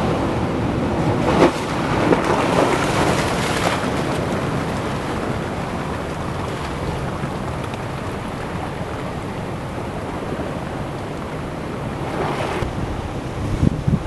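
Ocean surf washing against rocks: a steady rush of water that swells twice, once about a second and a half in and again near the end, as waves break.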